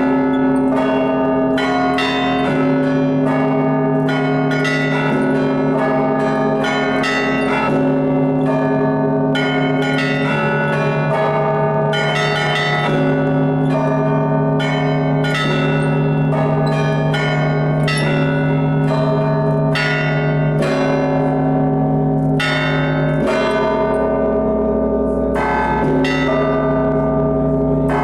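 Russian Orthodox church bells rung by a bell ringer in a continuous peal. Quick, dense strokes on the small high bells, several a second, sound over the deeper bells, which keep ringing and change pitch every few seconds.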